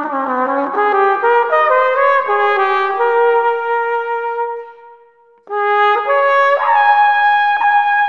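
Flugelhorn playing a slow melody. A phrase ends on a long held note that fades away, there is a short breath pause about five seconds in, then a new phrase climbs to a sustained high note.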